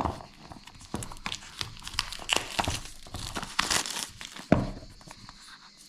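Packaging being handled and opened by hand: irregular crinkling and crackling with tearing sounds, one sharper snap about four and a half seconds in, then dying down.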